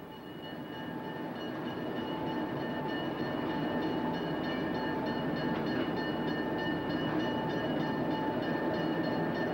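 Diesel switcher locomotive running along street track, growing louder over the first couple of seconds as it approaches, then running steadily.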